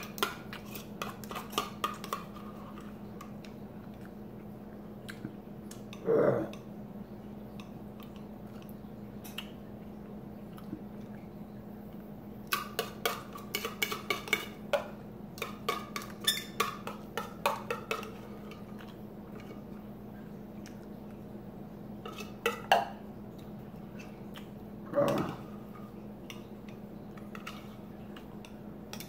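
Metal fork scraping and clinking against the inside of a tin can of tuna, in irregular clusters of quick strokes, busiest about halfway through. A few short voice-like sounds break in now and then.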